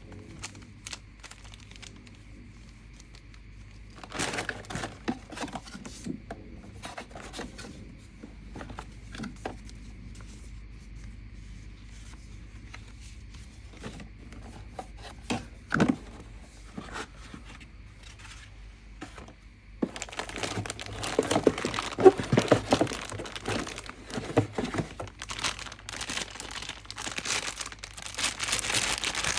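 Packaging being handled and opened: crinkling and rustling with scattered clicks and small knocks, which turn into denser, louder crinkling about two-thirds of the way through.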